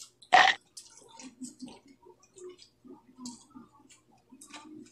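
Close-up eating sounds of people chewing rice and dried fish by hand: wet mouth smacks and small clicks, scattered irregularly. A single loud, short, sharp sound comes about half a second in.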